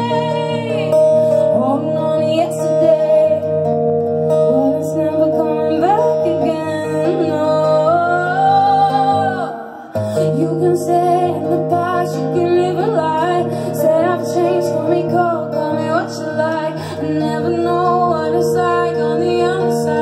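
Live song: a woman singing over her own strummed acoustic guitar. A long held note shortly before halfway ends in a brief break, and then the guitar and voice come back in.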